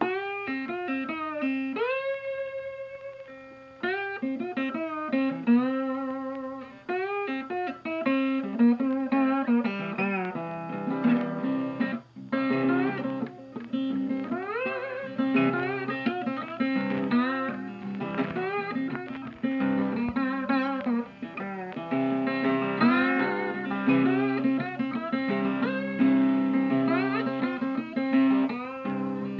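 Background music: a blues-style guitar piece with bending, sliding lead notes over a steady bass line.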